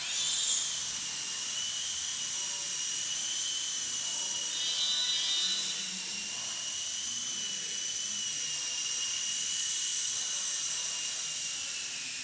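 Traxxas DR-1 coaxial RC helicopter in flight: its electric motors and rotors make a steady high-pitched whine that wavers slightly in pitch.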